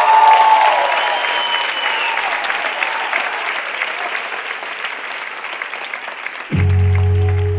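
Audience applauding and cheering, with a few shouts rising above the clapping. About six and a half seconds in, music comes back in abruptly with a low sustained note.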